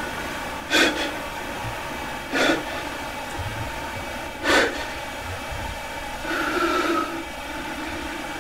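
A man's sharp, heavy breaths: three gasps a second or two apart over a steady background hiss, as someone does when jolted awake from a nightmare. Near the end a longer held tone sounds for about a second, like a distant horn.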